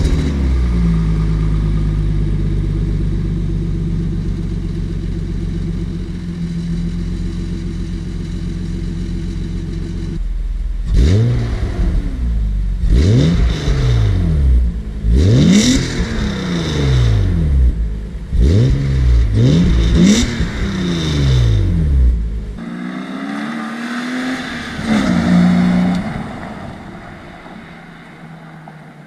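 BMW E36 M3 straight-six through a BMP Design cat-back exhaust, running at a steady idle just after a cold start, then revved in a quick series of blips about halfway through. After that the car is heard farther off, accelerating and fading away.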